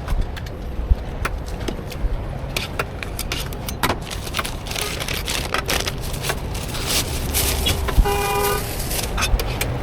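A brief vehicle horn toot about 8 s in, over steady street traffic rumble, with scattered light clicks and knocks throughout.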